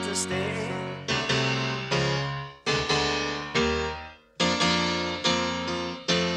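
Piano playing a run of chords from a pop song, each chord struck and left to ring out and fade, about one a second, with no singing.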